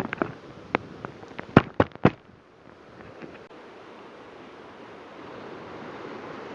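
Ocean surf washing over shoreline rocks, a steady rush that swells a little near the end. In the first two seconds a quick run of sharp clicks and knocks sits over it.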